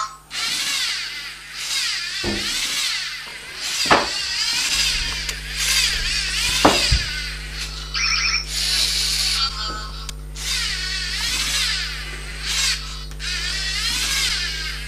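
Lego NXT servo motors whirring in short repeated runs as the turret swivels, with a couple of sharp clicks.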